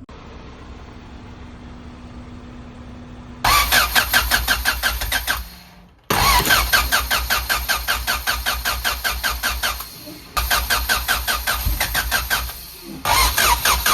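Honda Civic B16 engine turned over by its starter motor in four cranking attempts of a few seconds each, beginning about three and a half seconds in, with an even, rhythmic chug that does not catch and run: a crank-no-start. A faint steady hum comes before the first crank.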